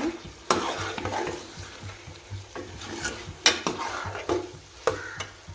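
Metal spoon scraping and knocking against a steel pot while stirring potato cubes sautéing in spiced tomato masala, with a few sharp clacks. The oil sizzles underneath.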